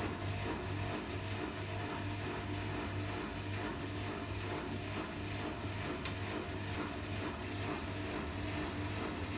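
Bosch washing machine drain pump running in its service-mode test, freshly unclogged: a steady hum that pulses about twice a second. This chugging is a good sign that the pump is working.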